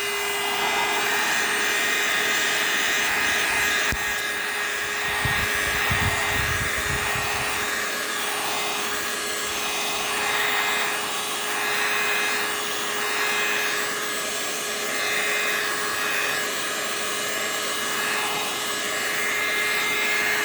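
Hot-air blower running steadily with a motor whine, heating a tablet so its screen comes off more easily; it switches off at the end. A few low rumbles come about five to seven seconds in.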